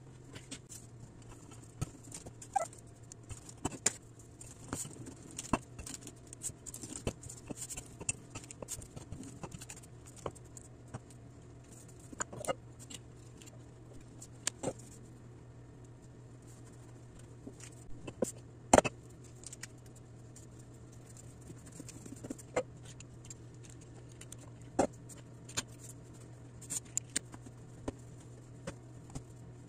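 Scattered light clicks and taps of kitchen handling on a granite countertop: a pizza cutter run around the rim of a glass pot lid to cut a round of dough, then dough scraps pressed together by hand. One sharper knock comes a little past the middle, and a steady low hum runs underneath.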